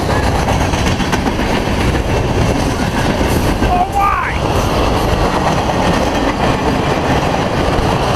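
A freight train's boxcars rolling past close by: a steady, loud rumble of steel wheels on rail with clickety-clack.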